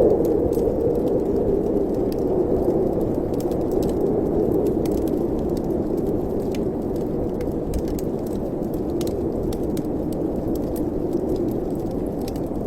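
Wind rushing steadily through a fireplace chimney, a low, even noise with faint scattered crackles.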